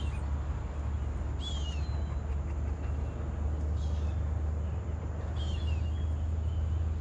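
Birds calling: four short, high chirps that drop in pitch, a second or two apart, over a steady low rumble.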